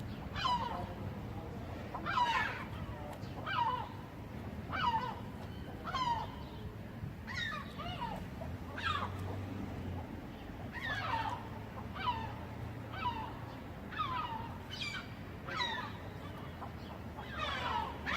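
Gulls calling: short harsh calls, each falling in pitch, repeated about once a second.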